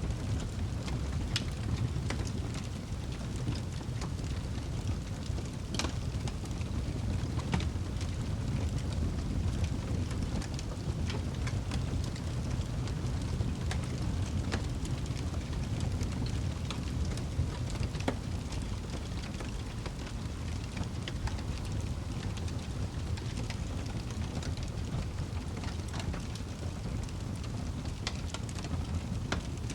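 Wood fire burning in a fireplace: a steady low rush of flames with irregular sharp crackles and pops from the burning wood.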